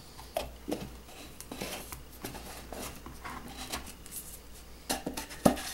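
Metal screw lid being twisted onto a glass jar: irregular scraping and clicking of metal on glass, with a sharp knock near the end.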